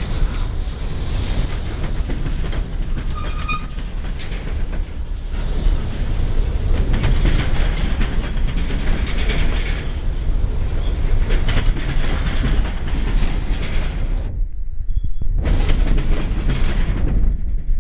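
Freight train cars rolling past: a steady rumble of steel wheels on rail with a clickety-clack.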